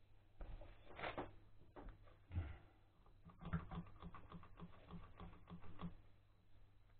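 Ratchet wrench clicking in a quick, regular run, about three to four clicks a second, as bolts on a walk-behind tractor's gearbox housing are turned. Earlier come a few knocks of metal parts being handled.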